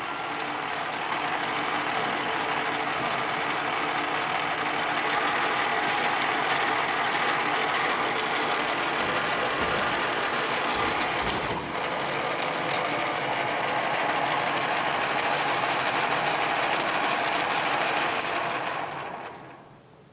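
A workshop machine running steadily with a dense mechanical hum, with a few sharp clicks along the way; it winds down and fades out near the end.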